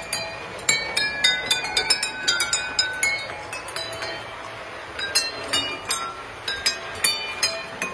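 A row of water-tuned drinking glasses is struck one after another by a mallet arm on a moving model train locomotive, each clink ringing out a clear note at a different pitch to play a tune. The strikes come in quick runs, with a slower stretch of longer-ringing notes around the middle.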